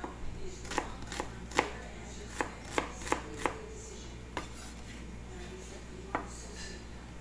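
Kitchen knife chopping small red onions on a plastic cutting board: about ten irregular sharp knocks of the blade on the board, the loudest about one and a half seconds in, thinning out after about four seconds.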